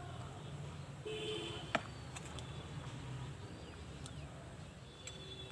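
Quiet eating sounds: faint clicks of a spoon against a steel plate, with one sharper click a little under two seconds in, over a steady low outdoor hum.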